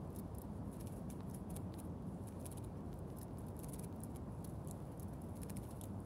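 A tit bathing in water in a tin can, its fluttering wings making a quick, irregular patter of small splashes, over a steady low background rumble.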